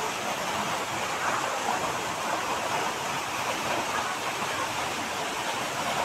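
Waterfall pouring down a rock face, a steady rush of falling water that holds an even level throughout.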